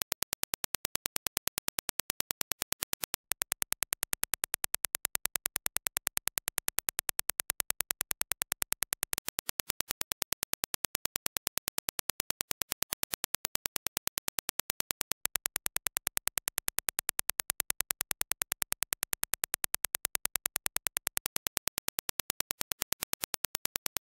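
Reference Dirac impulse test signal: a fast, even train of sharp clicks, several a second. It breaks briefly about three seconds in and again about fifteen seconds in.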